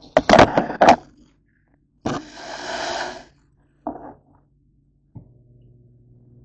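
Handling noise as the camera is picked up and set down on a kitchen counter: a loud clatter of knocks and bumps in the first second, a rustling hiss about two seconds in, a single knock near four seconds, then a click followed by a faint low hum.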